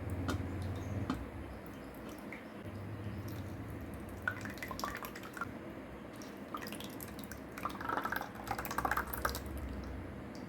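Soaked, ground semolina batter being strained through a cloth, its milky liquid dripping and trickling into a vessel, with clusters of small wet crackles midway and near the end.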